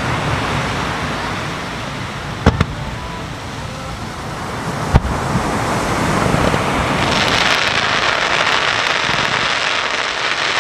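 Fireworks shells bursting: two sharp booms about two and a half and five seconds in, the second the loudest, then from about seven seconds a steady hiss as sparkling stars burn, over a constant wash of surf.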